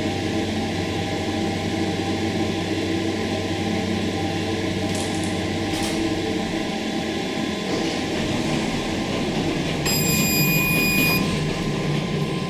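Schindler hydraulic elevator running: a steady mechanical hum and rumble, with the low mains-like hum dropping away about halfway through. Near the end a single high electronic beep sounds for about a second, the lift's signal beep with no voice announcement, as its voice module is dead.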